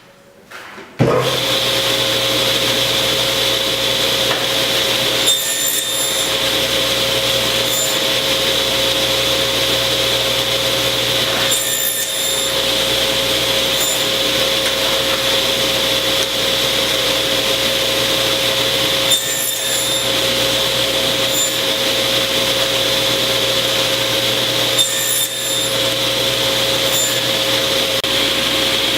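Electric woodworking power tool switching on about a second in and running steadily with a constant whine, as if working wood. Its sound dips briefly about every six or seven seconds.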